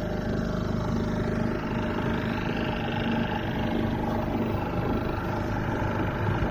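Small outboard motor on an inflatable dinghy running steadily under way, with the wash of water along the hull.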